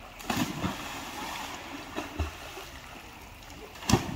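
Two splashes of people jumping into a river swimming hole, one about a third of a second in and a louder, sharper one near the end.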